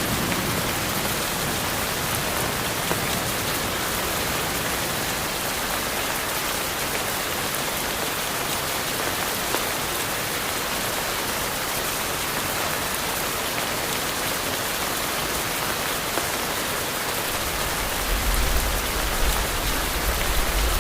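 Steady rain falling in an even, dense hiss of drops. A low rumble comes in near the end.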